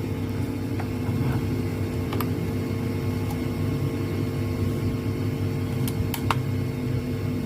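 A small electric motor running steadily with a humming whir, with a few light clicks about two seconds in and again near six seconds.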